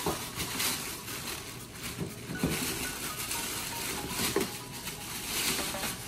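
Clear plastic packaging bag crinkling and rustling in irregular crackles as a plastic bird-cage tray is pulled out of it.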